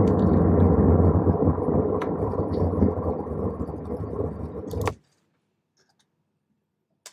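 Road and engine noise inside a moving car's cabin, a steady low rumble that cuts off suddenly about five seconds in. A single click near the end.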